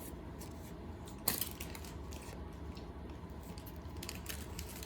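Trading cards being handled and shuffled, with one sharp tap about a second in and a few light rustles near the end.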